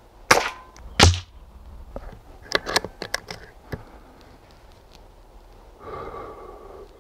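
Shots from a moderated Daystate Huntsman .177 PCP air rifle: two sharp cracks within about a second of each other. They are followed by a run of small metallic clicks as the bolt is worked back and forward to chamber the next pellet, then a brief soft rustle.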